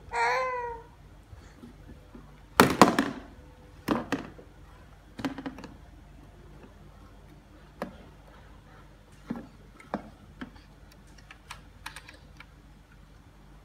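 Baby knocking and clattering a plastic clip-on fan against a plastic high-chair tray: irregular knocks and taps, the loudest a few seconds in. A short baby babble at the very start.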